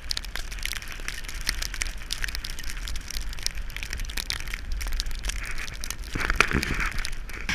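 Skis or a snowboard sliding over crusty snow: dense crackling and scraping over a steady low rumble, with a louder surge of scraping about six seconds in.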